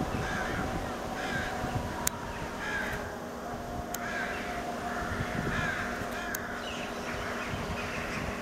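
PESA Elf EN76 electric multiple unit rolling slowly into a station, its electric drive giving a steady hum over a low rumble, with three sharp clicks. Harsh bird calls repeat about once a second throughout.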